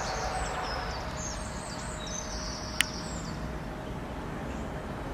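Small birds chirping in short, high, repeated calls over a steady low outdoor rumble; the chirping stops about three seconds in, and one sharp click comes just before it ends.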